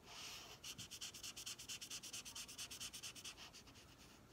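Thick felt-tip marker scrubbing back and forth on paper while colouring in a shape: faint, quick scratchy strokes, several a second, thinning out near the end.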